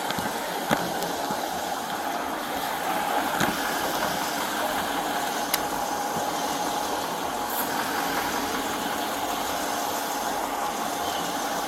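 A vehicle engine idling steadily, with a few faint clicks.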